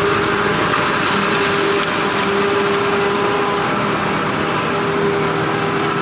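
Forage harvester running steadily while chopping corn for silage, a dense mechanical noise with a humming tone that comes and goes.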